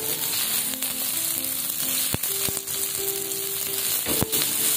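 Hot oil sizzling as sliced chilies, shallots and garlic are stir-fried in a wok and turned with a spatula, with two sharp knocks, about two and four seconds in. Background music with held notes plays over the frying.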